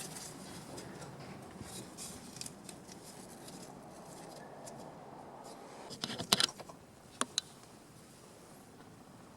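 Faint handling noise, then a short cluster of sharp clicks about six seconds in and two quick clicks a second later.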